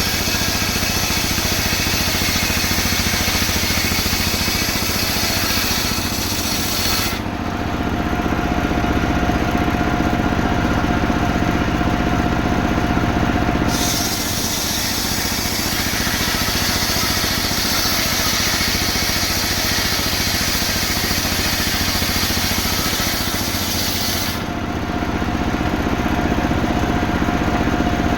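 Engine-driven saw cutting through a coconut palm trunk, its high cutting noise stopping about seven seconds in while the engine keeps running, starting again about halfway through and stopping once more near the end.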